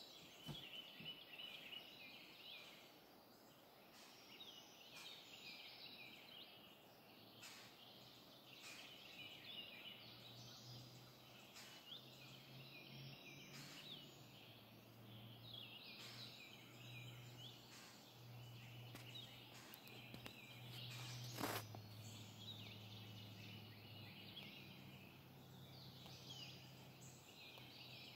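Faint morning chorus of songbirds in leafy woodland, many overlapping high chirping songs throughout. A low steady hum comes in about a third of the way through, and a single sharp click, the loudest moment, sounds a little past two-thirds through.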